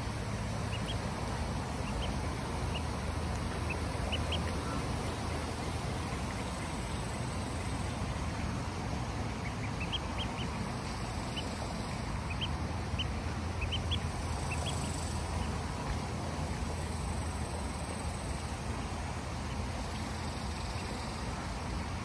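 Ducklings peeping: short high peeps scattered through, in two bunches, over a steady low background rumble.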